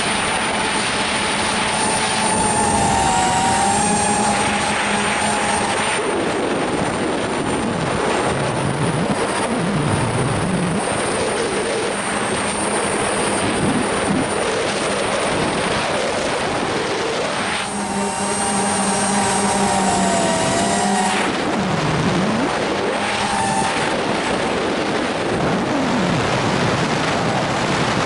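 Wind rushing over the microphone of an FPV model plane's onboard camera in flight, with the motor and propeller's whine coming and going under it as the throttle changes, its pitch wavering and sliding down and back up.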